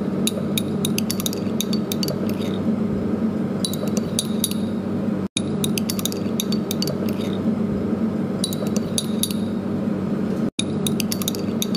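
Clusters of light glassy, metallic clinking over a steady low hum. The sound cuts out completely for an instant twice, about five seconds in and again near the end.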